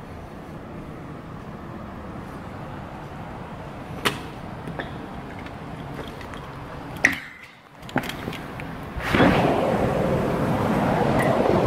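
Strong wind ahead of a hurricane buffeting the microphone, loud and gusty from about nine seconds in. Before that, a low steady rush broken by a couple of sharp knocks or clunks.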